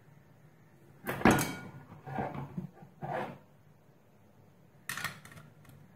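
Knocks and clatters of a metal pan and a glass mug being handled on a tabletop: a loud knock about a second in, two softer ones after it, and a sharp click near the end.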